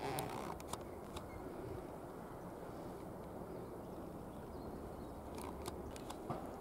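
Walking along a forest path outdoors: a steady low rumble, with a few sharp clicks and crackles in the first second and again near the end.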